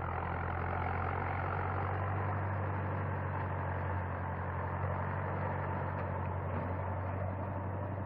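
Engine of a tracked dragline crane running steadily at work, a low, even drone.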